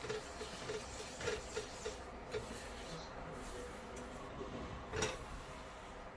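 Spatula stirring and scraping besan roasting in ghee in a pan, in quick repeated strokes about three a second, with one louder knock about five seconds in.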